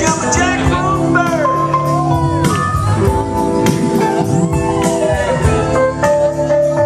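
Live band playing an instrumental blues passage: guitar with bent notes over held chords and a steady, evenly spaced beat.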